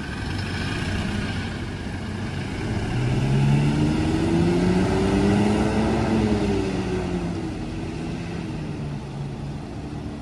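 Diesel city bus pulling away from a stop, its engine rising in pitch as it accelerates, loudest about halfway through, then falling and fading as it moves off down the road over steady street traffic.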